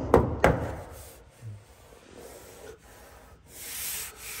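A few sharp knocks in the first half-second, then a soft rubbing, brushing noise near the end.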